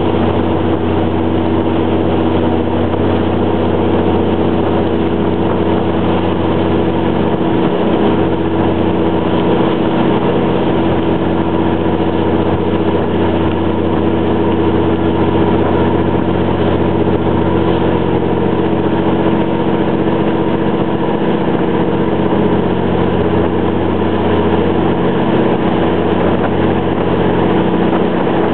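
A boat's engine running steadily as heard on board: a loud, constant drone with a steady hum, no change in speed.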